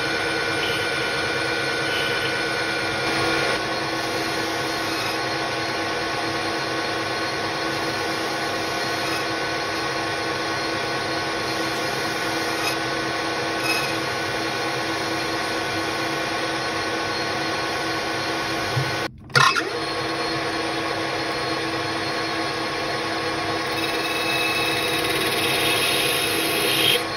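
AL-1324 centre lathe running, its spindle and gearing giving a steady hum with several steady whining tones. About two-thirds of the way through the sound drops out briefly and a sharp knock follows.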